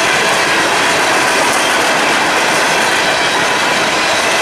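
Empty steel coal hopper cars rolling past on the rails: a loud, steady rush and rattle of wheels on track, with faint ringing tones from the wheels.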